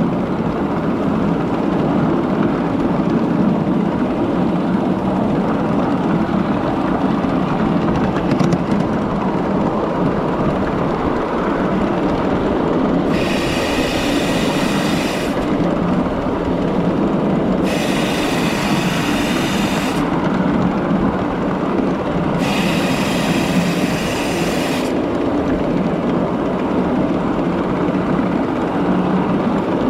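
Miniature train running steadily on 7.5-inch gauge track. In the second half, three high-pitched whistle blasts of about two seconds each sound with short gaps between them.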